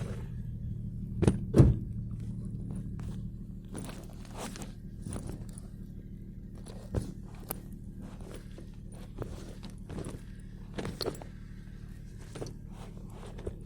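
Scattered knocks and thuds with footsteps, the loudest two close together about a second and a half in, over a steady low hum.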